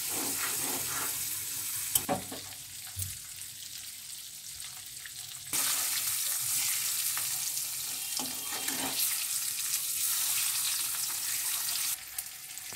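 Hard-boiled eggs sizzling in hot turmeric oil in a metal kadai as they are browned, with a spatula knocking and scraping against the pan now and then. The sizzle turns suddenly louder about five seconds in and drops back shortly before the end.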